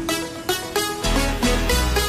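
Background music: layered melodic notes over a heavy bass line that drops out for about the first second and then comes back.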